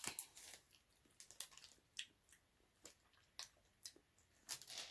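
Faint, scattered small clicks and smacks of a hard candy sweet being eaten, several spread irregularly through a near-silent pause.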